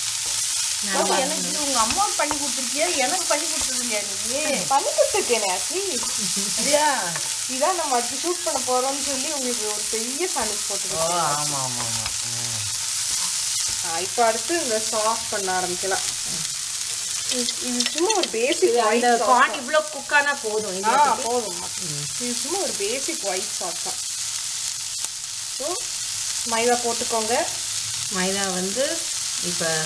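Corn and capsicum frying in a nonstick pan with a steady sizzle, stirred and scraped with a wooden spatula. Wavering pitched sounds come and go over the sizzle.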